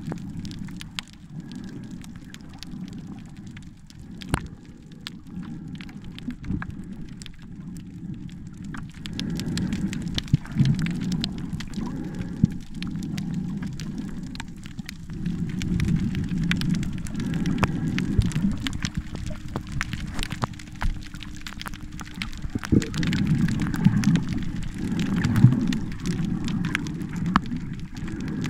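Seawater heard underwater through a camera just below the surface: low, muffled water rushing that swells and fades, with many small crackling clicks and pops.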